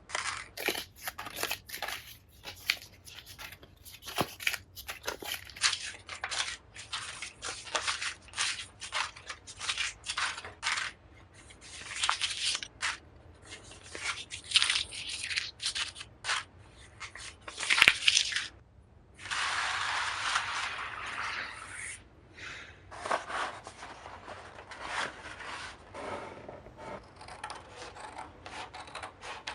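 Close-up handwork: a rapid, irregular run of short scratching and crunching strokes, with one longer continuous scrape about two-thirds of the way through.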